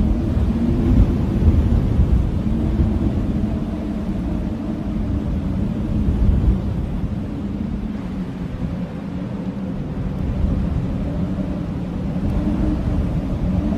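Blizzard wind howling: a deep, steady rumble with wavering low howling tones over it, easing a little around the middle and building again near the end.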